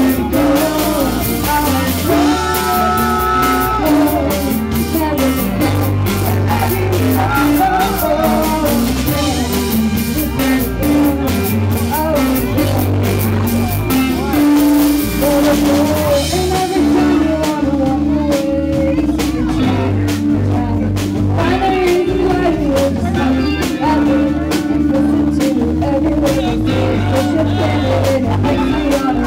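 Live rock band playing: a woman sings into a microphone over electric guitar and drums, recorded on a camera's microphone in the audience.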